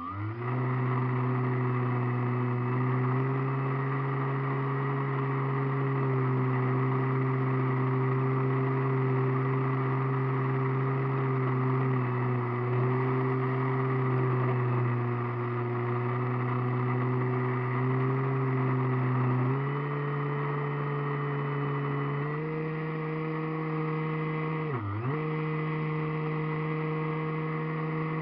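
Model airplane's motor and propeller, recorded close from an onboard camera: a steady drone that swells up at the start and steps up in pitch twice past the middle. A few seconds before the end it dips sharply for a moment, as the throttle is chopped, then comes straight back.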